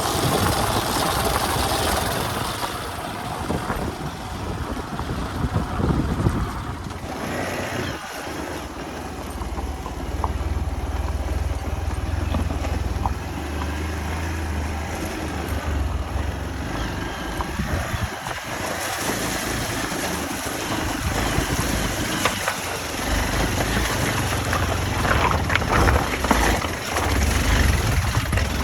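Hero Xpulse 200 motorcycle's single-cylinder engine running as the bike is ridden, its level rising and falling, with a few sharp knocks near the end.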